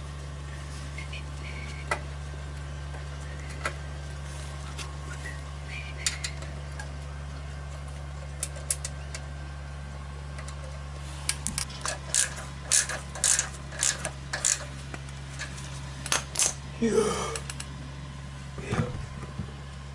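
Sharp metallic clinks and taps of motorcycle muffler parts being handled and fitted, scattered at first, then coming thick and fast in the second half. A steady low hum runs underneath.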